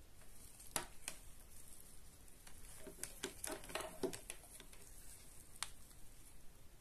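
Faint handling noise from a plastic IPL hair-removal handset and its power cord under gloved hands: light clicks and knocks, one about a second in and a quick cluster around three to four seconds in, over a steady hiss.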